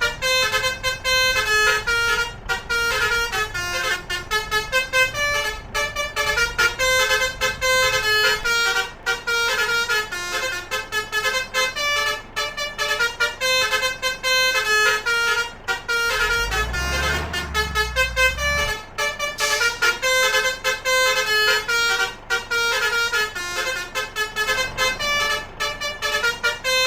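Basuri multi-tone trumpet horns ('telolet' horns) playing melodies over and over, note after note, with several tunes overlapping. A deep rumble comes in briefly about two-thirds of the way through.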